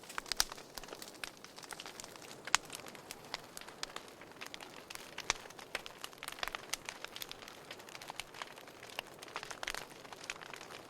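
Wood fire crackling in a fireplace: an irregular run of sharp pops and snaps over a soft hiss, with one louder pop about two and a half seconds in.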